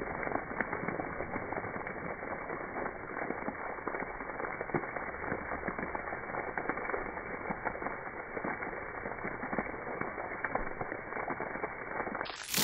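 Splash-pad water jets spraying and spattering onto wet concrete: a steady crackling hiss full of small ticks.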